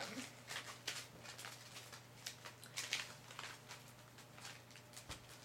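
Faint, irregular rustling and light tapping of small blind-bag packages and cards being handled, a dozen or so short strokes over a steady low hum.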